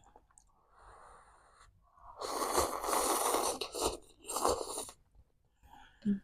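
A person hissing air hard through the mouth: one long breath, then a shorter one, with a softer breath before them.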